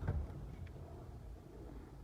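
Faint handling noises: a light click right at the start and a fainter tick under a second in, over a low rumble.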